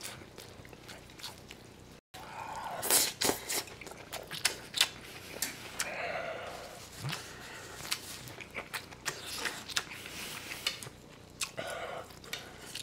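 A person eating bulgogi and kimchi close to the microphone: wet chewing with many sharp lip-smacking clicks, and a brief murmur or two.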